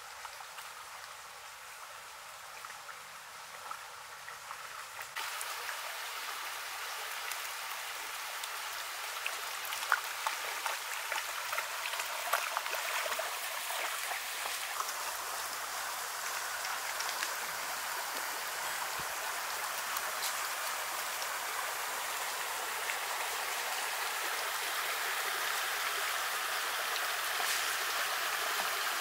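Shallow stream running over stones, steady and getting louder about five seconds in, with a few small splashes as a dog wades through the water.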